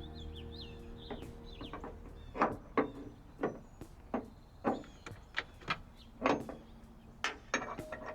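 Hand ratchet wrench working a hood hinge bolt: a run of short, sharp ratcheting strokes at uneven intervals, roughly two a second.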